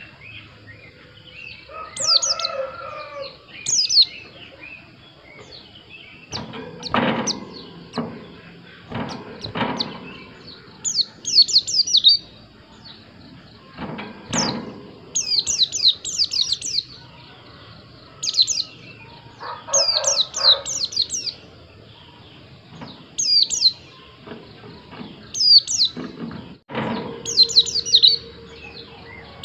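White-eye (pleci) singing: short bursts of rapid, high, falling chirps, repeated every second or two, with several dull knocks between them.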